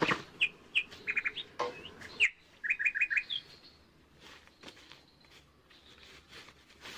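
A small bird chirping in short notes, twice in quick runs of four or five, over the first three seconds or so. Faint rustling and crackling of dry bamboo leaves underfoot follows as someone moves about on the leaf litter.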